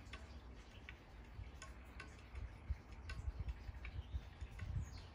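Quiet outdoor ambience: sparse, irregular light ticks and clicks over a low, uneven rumble.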